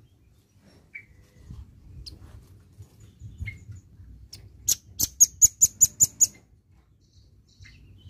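Velvet-fronted nuthatch calling: a few separate high chirps, then, about five seconds in, a fast run of about eight sharp notes, several a second, which is the loudest part.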